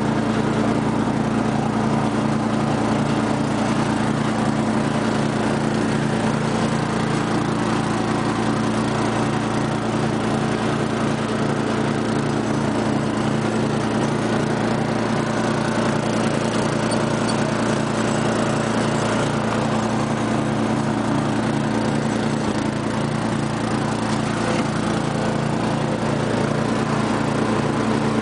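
A 1999 Murray rear-engine rider's 12 hp Briggs & Stratton Industrial/Commercial engine running steadily as the mower drives across the grass mowing.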